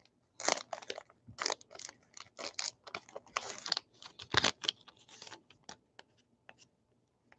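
Trading-card pack wrapper crinkling and tearing as it is pulled open by hand: a quick run of short crackles that thins out after about five seconds.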